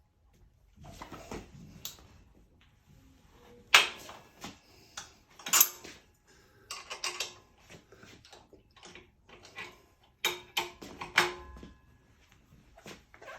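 Irregular metallic clicks, knocks and creaks from a Klein bottom-bracket extraction tool being worked to draw a press-fit spindle and bearings out of the frame, some strikes ringing briefly. The loudest come about four seconds in, near the middle, and around ten to eleven seconds in.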